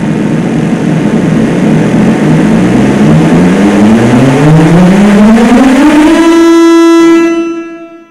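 Race car engine accelerating hard over a dense roar, its pitch climbing steadily for several seconds, then holding one high note before fading out quickly near the end.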